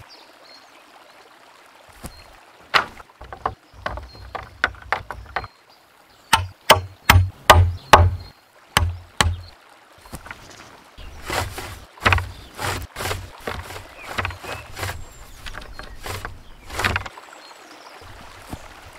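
Wooden poles and sticks knocking and clattering as a pole-built door frame is handled and fitted into a hut's doorway. There is a quick run of about eight sharp wooden knocks in the middle, with more scattered knocks after it.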